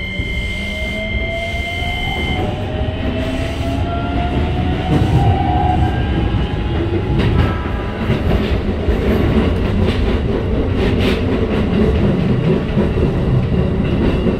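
Keikyu 1500-series train with a Toyo IGBT VVVF inverter, heard from inside the car while accelerating. Two steady high tones stop about two seconds in, then the inverter and traction-motor whine climbs in pitch as the running noise grows. The wheels clack over rail joints and points.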